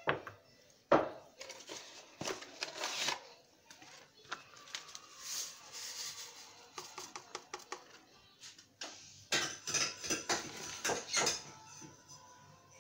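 Metal spoon clinking and scraping against a stainless-steel saucepan of milk, in a series of sharp knocks, the loudest about a second in. Around the middle comes a hiss of strawberry flan powder being poured from its paper sachet.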